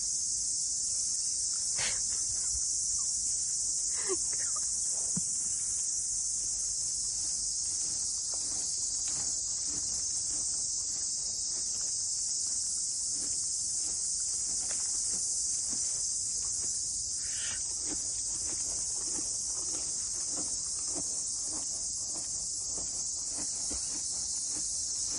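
Steady, high-pitched insect chorus that continues without a break, with a few faint knocks here and there.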